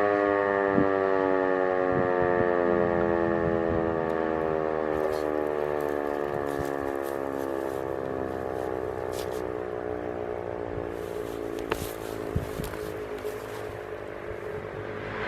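E57 electromechanical civil-defence siren winding down at the end of a test alarm: its howl slowly falls in pitch and fades as the rotor coasts to a stop.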